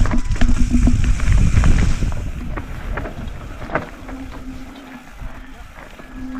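Mountain bike riding down a rocky dirt trail: tyres rolling and crunching over the track, with wind rumble on the microphone. The rumble is loud for the first two seconds and then eases off. Scattered sharp knocks from the bike over rocks, and a few short low hums.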